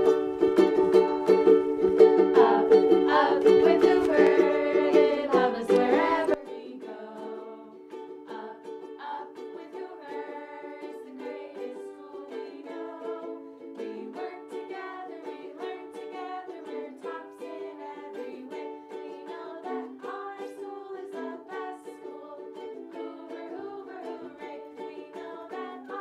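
Two ukuleles strumming chords while a group of children and adults sing along. About six seconds in, the sound drops sharply in level and loses its low end.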